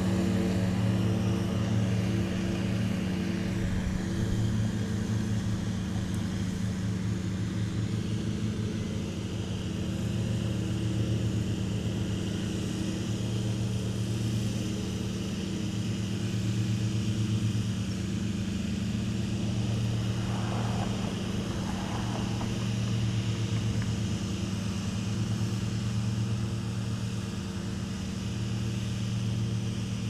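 Riding lawn mowers' engines running steadily while cutting grass, the drone swelling and easing every few seconds.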